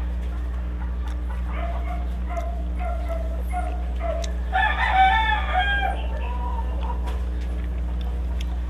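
Chickens calling: a string of short clucks, then a louder, longer crowing call about four and a half seconds in, over a steady low hum.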